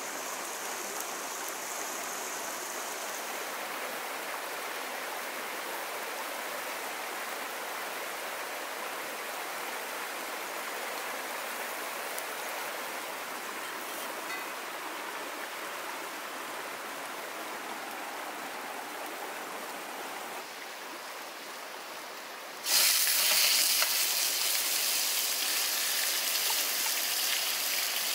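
A river stream running steadily. Late on, a loud sizzle starts suddenly as raw chicken strips drop into hot oil in a frying pan, and the frying carries on.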